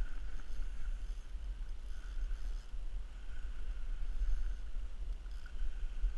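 Steady low rumble of wind buffeting the camera microphone, with a faint thin whir that comes and goes above it.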